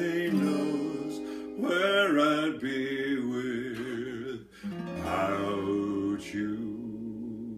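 A 1981 Fender F3 acoustic guitar, capoed at the fourth fret, strummed in E-shape chords while a man sings long wavering held notes over it. New chords are struck twice, and near the end the sound dies away.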